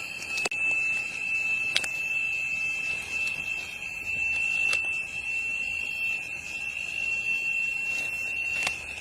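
A continuous steady high-pitched tone, unchanging throughout, with a few short sharp clicks at about half a second, two seconds, five seconds and near the end.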